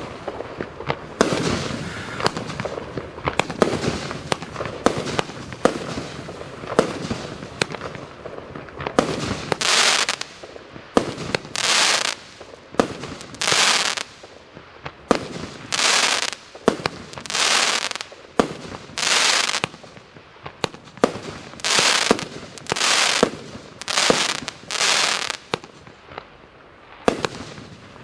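A 238-shot compound fireworks cake firing: rapid sharp cracks of shots and bursts at first. From about nine seconds in, a string of loud hissing crackle bursts follows one after another, then sharp cracks again near the end.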